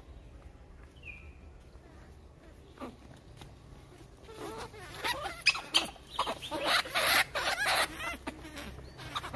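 Leafy branches rustling and shaking in loud, irregular bursts from about halfway through as a monkey clambers through a tree. A single short, high chirp sounds about a second in.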